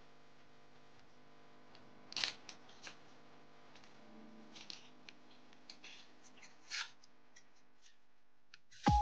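Paper-and-foil alcohol prep pad sachets crinkling in the hands as they are handled and torn open: a scatter of short rustles, the loudest about two seconds in, over a faint steady hum. Music cuts in at the very end.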